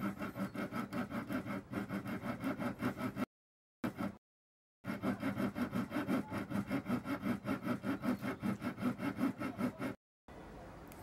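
A fine-bladed hand saw cutting back and forth through the fan blades of an aquarium pump's impeller, in quick, even strokes of about five a second. The sawing breaks off briefly about three seconds in, resumes, and stops shortly before the end.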